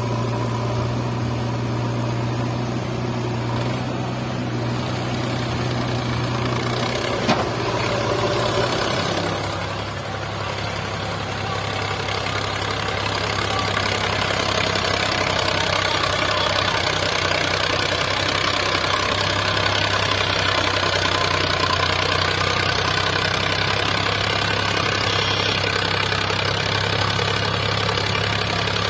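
Diesel engines of a backhoe loader and a Sonalika DI 745 RX tractor running steadily, with one sharp knock about seven seconds in. From about ten seconds in, the tractor's engine runs louder under heavy load as it pulls a fully loaded trolley of sand.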